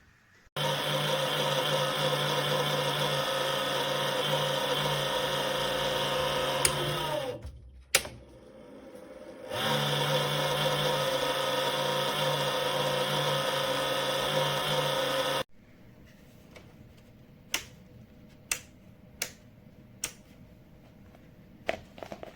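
A small electric motor running with a steady hum, winding down in pitch about seven seconds in and stopping with a click, then running again until it cuts off suddenly; several sharp clicks follow near the end.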